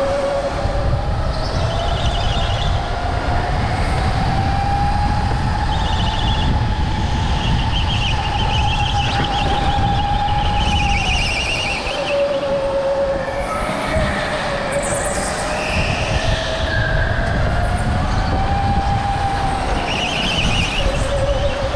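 Onboard sound of a go-kart lapping an indoor track: the motor's whine rises and falls in pitch with speed, short high tyre squeals come through the corners every few seconds, over a steady low rumble of the kart on the concrete.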